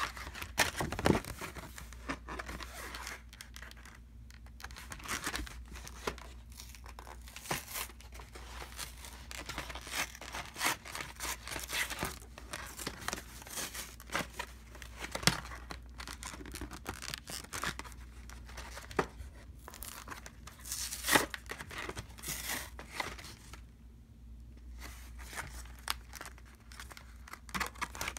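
Cardboard box and plastic blister packaging being handled and opened by hand: irregular rustling, crinkling and tearing with sharp clicks, easing off briefly a few seconds before the end.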